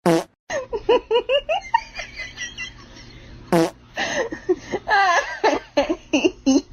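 A person laughing in quick repeated bursts, with a sharp click at the start and another about three and a half seconds in.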